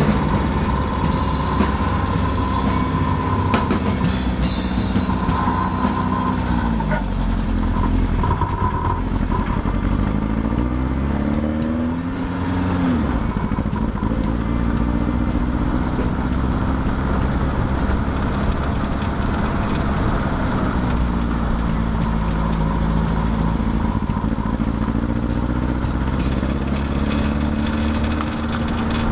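1967 Sunbeam Alpine's four-cylinder engine, breathing through headers and a stainless exhaust, driving along a street: its note rises as it accelerates and drops back at gear changes, most clearly about twelve seconds in, over steady road noise.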